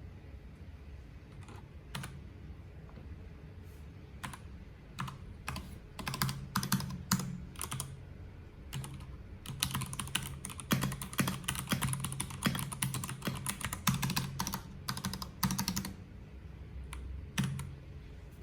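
Keycool KC84 mechanical keyboard with PBT double-shot keycaps being typed on. A few scattered keystrokes come first, then fast continuous typing from about six seconds in to about sixteen, then a few last strokes near the end.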